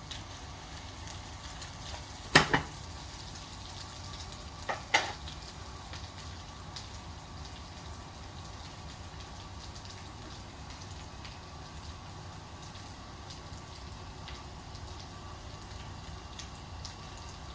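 Parboiled potato pieces sizzling steadily as they shallow-fry in oil in a pan. Two sharp knocks stand out, about two and five seconds in.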